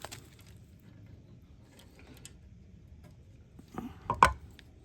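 Small metal parts clicking as a washer and pin are fitted onto the power rake's cable linkage: a sharp click at the start, a few faint ticks, then a quick cluster of louder clicks and a clank about four seconds in.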